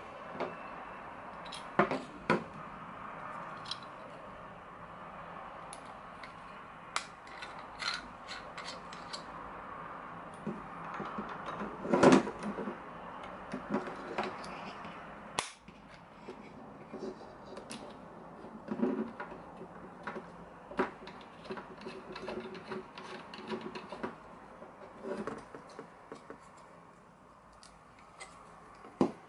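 Irregular clicks and knocks of hard plastic parts being handled and fitted together: the white clamp and ball-joint mount of a gooseneck phone and tablet holder, with one louder knock about twelve seconds in. A steady hiss lies under the first half and stops about halfway.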